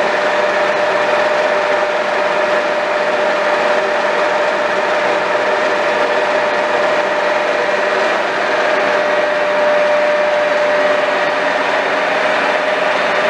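Rockland engine lathe running under power: a steady mechanical hum with a constant whine over it.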